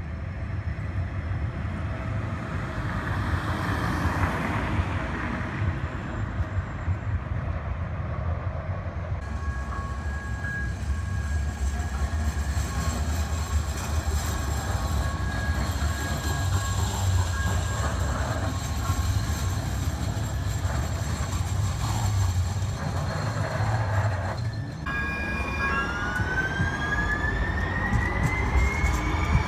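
Light rail trains running at street level, with a steady low rumble. Through the middle, steady high tones ring over the rumble. Near the end, a rising whine comes in as a train speeds up, typical of its electric traction motors accelerating.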